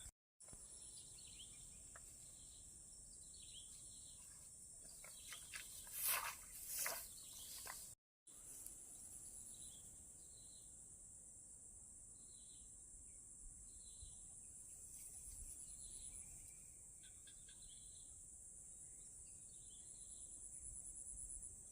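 Faint, steady high-pitched insect drone, with short chirping calls every second or two. A couple of brief, louder handling noises come about six to seven seconds in.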